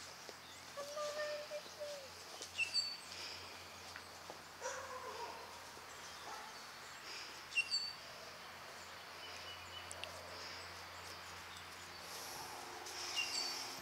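Birds chirping in the background, a short high two-note call repeated every few seconds, over steady outdoor ambience with a few soft rustles.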